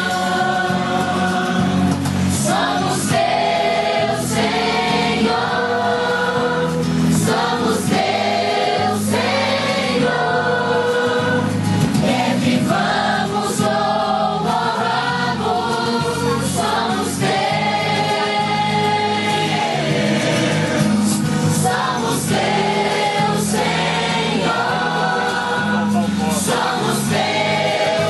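A Christian song sung by a group of voices, led by a woman singing into a microphone.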